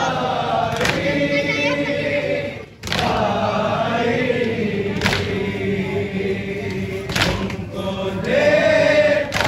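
Men's voices reciting a nauha, a Muharram lament, in unison through a microphone. About every two seconds a sharp thump strikes the beat: hands beating chests in matam.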